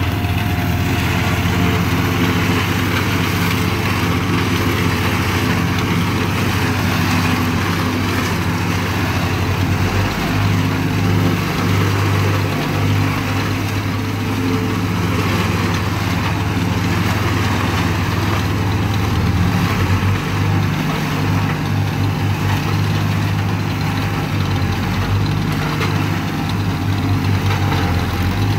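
Tractor engine running steadily under load, driving a one-row Papec forage chopper as it cuts standing corn and blows the chopped silage into a wagon.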